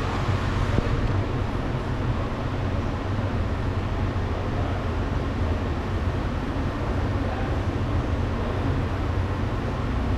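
Steady low rumble with a hiss, unbroken and even in level, with no distinct clicks or knocks.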